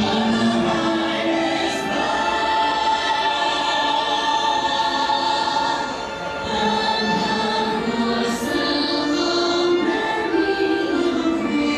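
Choral music: a choir singing held notes that change every second or two.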